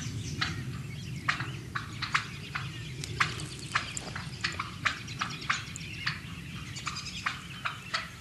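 Wild turkeys stepping through dry leaf litter: short, irregular crunching and crackling footsteps, about one or two a second, over a steady low rumble.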